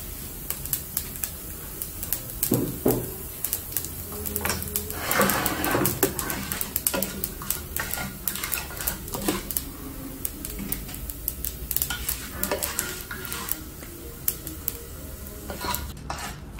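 A slotted spatula scraping and clicking against a non-stick frying pan in irregular strokes as lentils and mustard seeds are stirred in hot oil, with a light sizzle of the frying.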